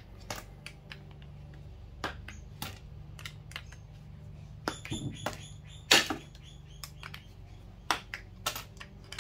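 Irregular sharp clicks and knocks of hand tools (side cutters and a screwdriver) and small metal plug parts handled on a workbench. The loudest knock comes about six seconds in.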